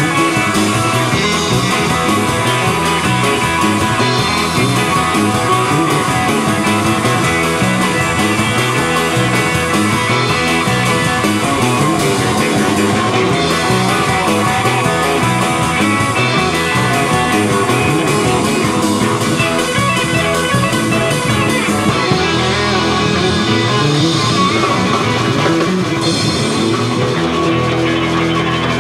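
Guitar-led rock music, playing steadily and loud.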